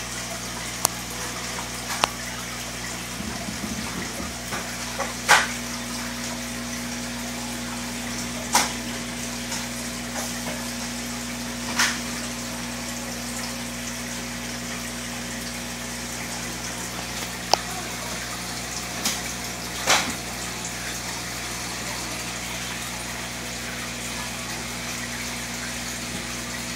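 Aquarium bubble curtain bubbling steadily: an even watery hiss over a steady low hum, with a few sharp clicks scattered through.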